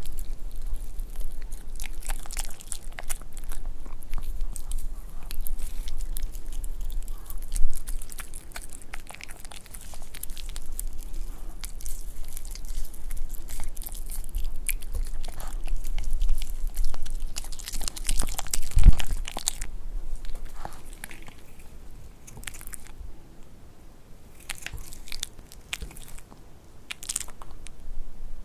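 A Pomeranian dog biting and chewing pieces of boiled beef close to the microphone: rapid, irregular crunching chomps. There is one heavy knock about nineteen seconds in, and the chewing eases off for a few seconds after it before picking up again.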